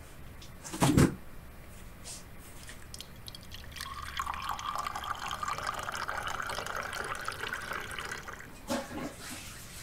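A single heavy thump about a second in, then water running from a tap into a sink from about four seconds on, with a short knock near the end.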